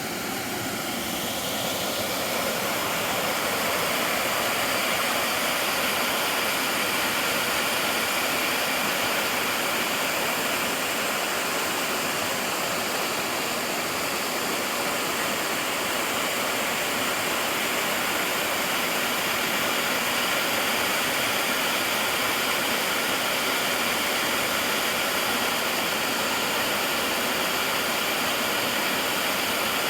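Mountain stream running: a steady, even rush of flowing water.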